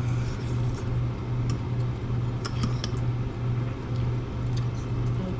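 A steady low mechanical hum that swells and fades about twice a second, with a few light clicks around the middle.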